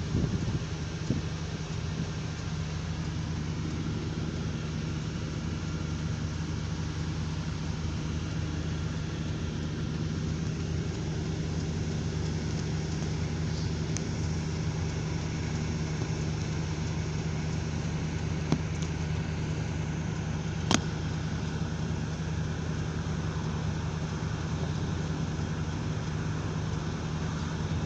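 Vehicle engine idling while the vehicle stands still, heard from inside the cabin as a steady low hum. A few brief clicks come in the second half, the sharpest about two thirds of the way through.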